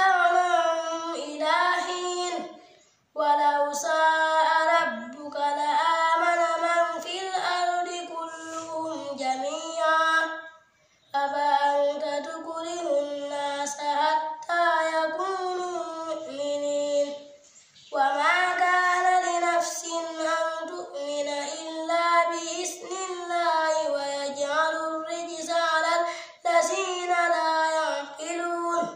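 A child chanting the Quran in a melodic recitation, a single voice holding long, wavering notes phrase by phrase, with breath pauses about three seconds in, about eleven seconds in and about seventeen seconds in.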